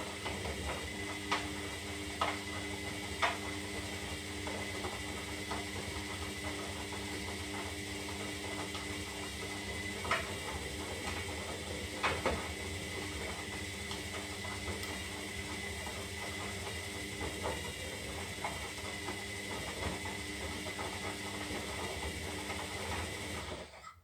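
Zanussi Lindo 300 washing machine running its synthetic wash cycle: a steady motor-and-drum hum with a few scattered clicks, which stops abruptly near the end.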